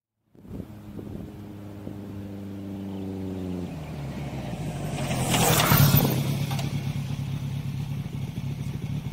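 Motorcycle engine approaching and pulling up close at a steady running note. It rises in pitch and gets louder about four seconds in, with a loud rush of noise around six seconds, then runs steadily until it stops abruptly at the very end.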